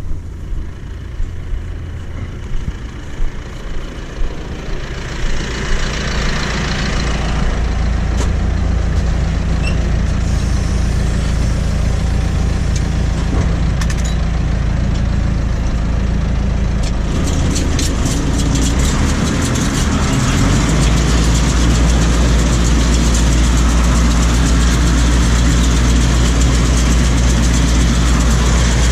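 Farm tractor's diesel engine running steadily, with a few knocks in the first seconds; about two-thirds of the way through it speeds up and settles at a higher, louder steady run as the tractor moves off pulling the round baler, heard from inside the cab.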